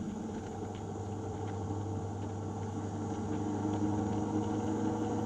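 Vehicle engine running at a steady speed, a low even hum without changes in pitch.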